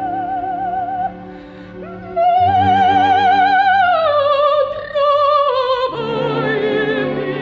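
Operatic soprano singing with wide vibrato over an orchestra. A held note ends about a second in, and after a short softer pause she takes up a loud sustained high note that then descends step by step.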